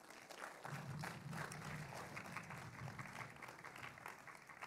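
Congregation applauding, many quick overlapping claps, over a low steady hum that comes in about a second in.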